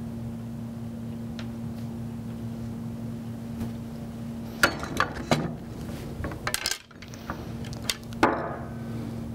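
A bowling ball being lifted, turned and set back into the cradle of a static-weight balance scale to check finger weight: a cluster of knocks and clunks over about four seconds, starting about halfway in, the last with a short ring. A steady low hum runs underneath.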